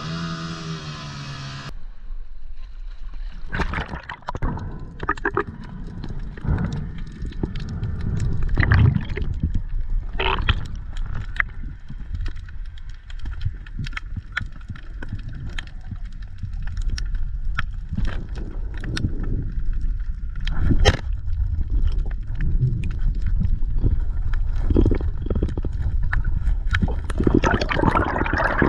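Underwater sound while freediving: gurgling water and bubbles with a low rumble and many scattered sharp clicks and knocks. A boat's outboard motor is heard for the first couple of seconds before it cuts off. Near the end a louder rush of water builds.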